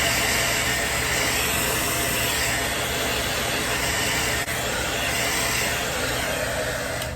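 Handheld blow dryer running at a steady loud whoosh, drying the spray-glued wig cap, then switched off abruptly at the very end.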